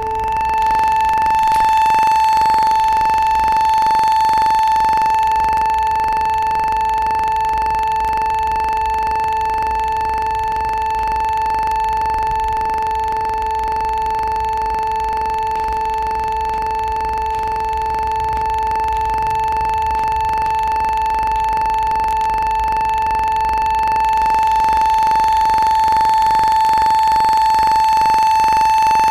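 A steady tone held on the note A, with a fainter A an octave below, sounding without a break. It comes from devices tuned to A.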